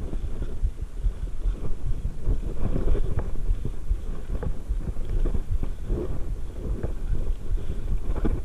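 Mountain bike rolling down a rocky dirt trail: tyres on stones and the bike rattling, with many small knocks over a steady low rumble of wind on the camera microphone.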